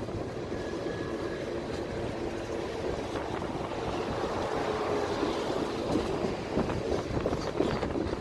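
Freight train tank cars rolling past: a steady rumble of steel wheels on the rails, with a few sharp clicks near the end.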